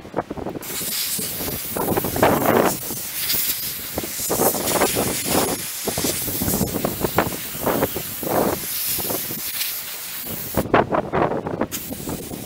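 Sandblaster nozzle blasting abrasive onto an old sheet-metal car part: a steady hiss that starts about half a second in and cuts off near the end, followed by one short burst.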